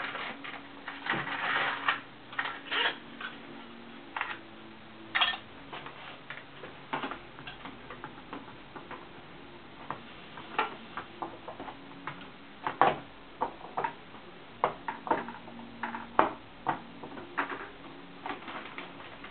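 Irregular clicks, taps and knocks as a fabric roller blind's cassette is handled and pressed onto a window frame, with a denser run of clicks in the first few seconds.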